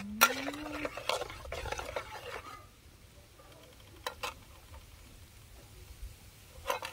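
Metal spatula scraping and stirring food in a steel wok over the first two and a half seconds. After that it goes quieter, with two light clicks of the spatula about four seconds in.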